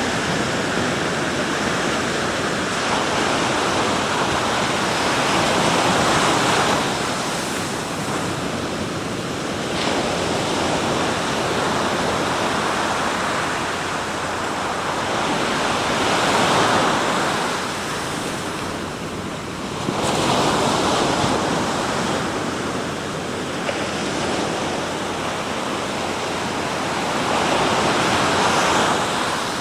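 Sea waves breaking and washing on the shore, the surf swelling and falling back every few seconds, with some wind on the microphone.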